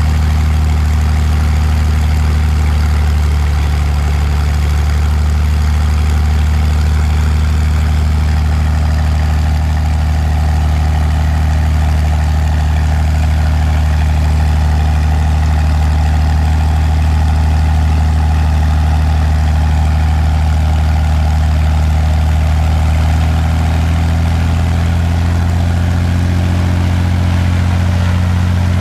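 Continental O-470-J flat-six aircraft engine of a Cessna 180, run uncowled at low power on its first run with a new Power Flow exhaust, turning the propeller. The engine runs at a steady speed, which shifts a little near the end.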